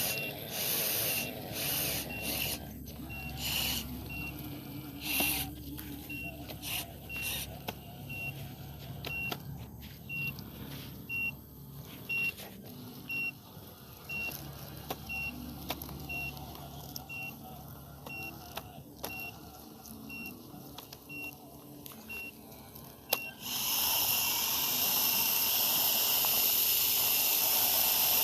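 Electronic warning beeps from a radio-controlled construction model, repeating about every two-thirds of a second over the low whir of its small motors, with short bursts of hiss. Near the end a loud steady hiss takes over.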